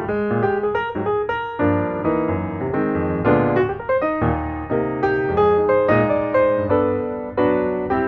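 Background music: solo piano playing a gentle melody over chords, notes struck and left to ring.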